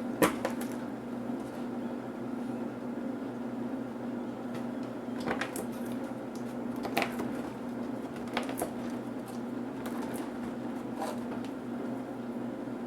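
Scattered light clicks and taps of small laptop parts being handled and pried apart during disassembly, about half a dozen over a steady low background hum.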